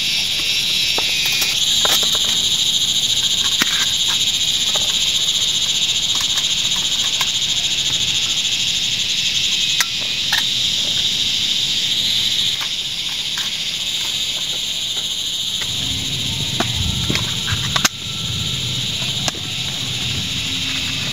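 Insects droning in a loud, steady, high-pitched buzz, with scattered light clicks and knocks from a small folding metal camp stove being handled.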